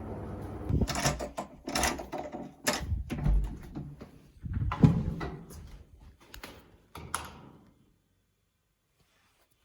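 A run of irregular knocks and clatters, like things being handled and set down in a small room, going on for several seconds and then stopping.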